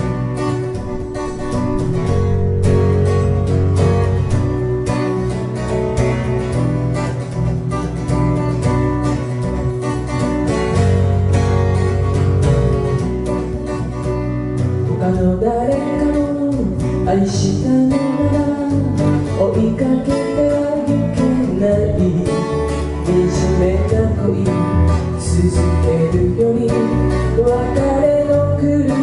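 Live acoustic guitar and bass guitar playing a ballad in a 16-beat groove, with a woman's voice starting to sing about halfway through.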